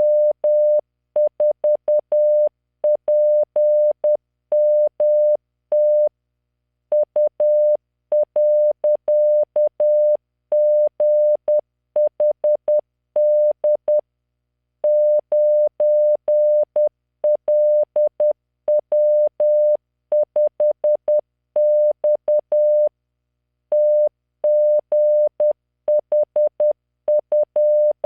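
Morse code practice tone from LearningMorse training software: a 600 Hz beep keyed into dots and dashes at 10 words per minute, sending random five-character groups of letters, numbers and punctuation, with short pauses between groups.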